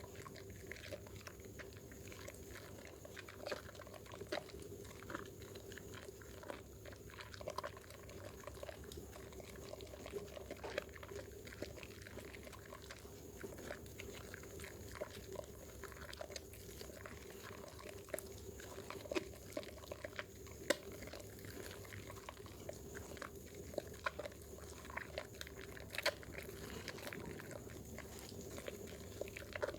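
Wet squelching and crackling of bar soap being lathered in the hands, with many small irregular clicks and pops from the foam.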